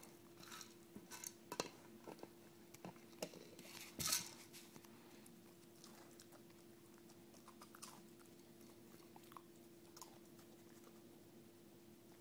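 A dog working a plastic treat-dispensing bottle with its mouth and nose: irregular clicks, knocks and crunches, thickest in the first few seconds with the loudest knock about four seconds in, then sparser. A faint steady hum lies underneath.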